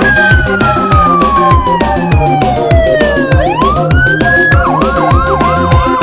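Fire apparatus siren in a long falling wail, then rising again and switching to a fast yelp of about three sweeps a second, over electronic background music with a steady beat.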